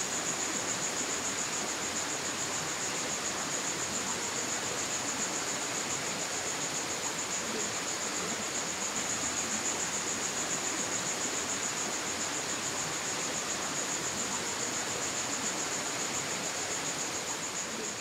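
Steady rush of a small forest stream, with a continuous high insect trill over it. It fades slightly near the end.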